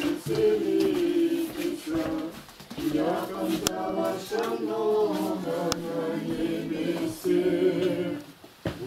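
Unaccompanied Orthodox liturgical chant sung by a small group of voices, holding and moving between sustained notes, with brief breaks about two and a half seconds in and near the end.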